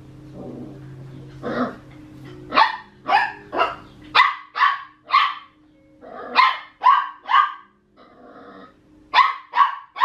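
Papillon puppy play-barking at a cat: about a dozen sharp, high yaps, mostly in quick runs of three.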